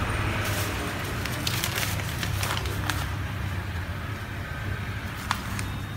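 Paper crinkling and tearing as a kitten bites and claws at a sheet, in a string of small crackles that are thickest in the first half, with a single sharp tick about five seconds in.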